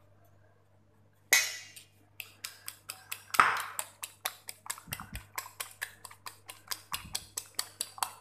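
Fork beating a raw egg in a ceramic plate: quick, even clinks about five a second, starting about two seconds in. Before that, a single sharp clink.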